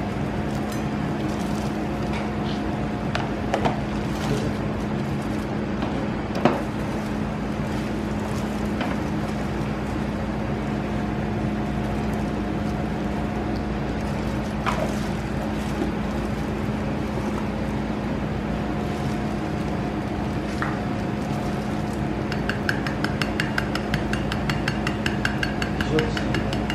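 A steady machine hum from the shop's equipment, with a few light clicks and clinks as nut toppings are sprinkled onto a waffle on a ceramic plate. Near the end comes a fast, even tapping of a sieve dusting powdered sugar over it.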